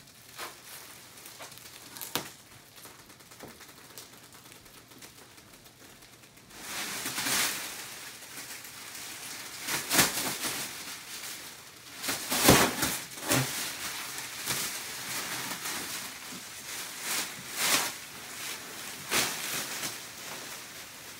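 Plastic wrapping on a vacuum-packed foam mattress crinkling and rustling as it is handled and pulled off. It starts as faint crackles and becomes loud, uneven bouts of crinkling from about a third of the way in.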